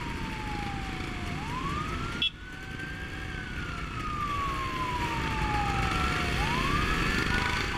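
A wailing siren whose pitch sinks slowly for about three seconds and then sweeps quickly back up, twice. Underneath are the steady running of motorcycle engines and wind noise.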